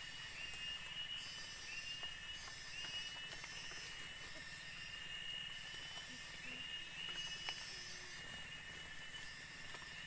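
Tropical forest ambience: a steady high insect drone, with a short chirping call repeated about once a second and a few faint twig clicks.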